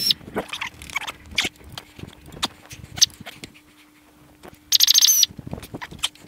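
A power ratchet spins briefly near the end with a high whine, amid scattered clicks and clinks of metal tools and bolts while an engine is taken apart.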